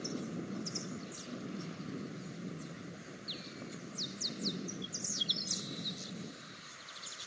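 Small birds chirping: quick, high, downward-sweeping chirps, busiest in the middle, over a steady low background noise.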